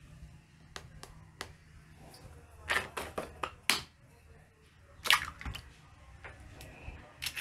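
An egg being tapped and cracked open: sharp taps and clicks, a quick cluster about three seconds in and the loudest crack about five seconds in.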